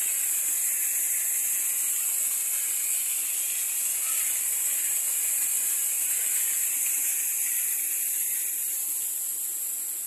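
Artificial rockwork waterfall: water pouring down rocks and splashing into a pool, a steady rushing noise that grows fainter near the end.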